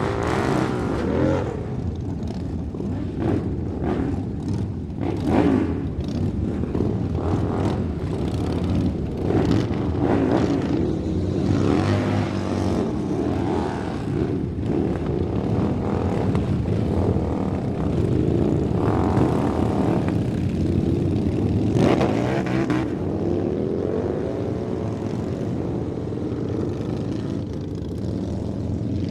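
Motorcycle engines running and revving, the pitch rising and falling over and over, with a few louder surges along the way.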